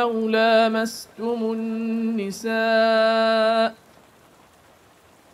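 A man's voice chanting Quranic recitation in tajweed style, drawing out the last word of a phrase in long, held melodic notes. It stops about three and a half seconds in.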